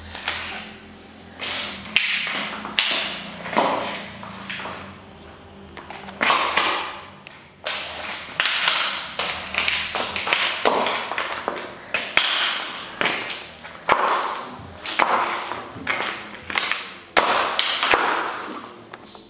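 High-heeled stiletto pumps stamping and grinding on a plastic toy car over a gritty, sandy floor: about one sharp knock a second, each followed by a short crunching scrape of plastic and grit.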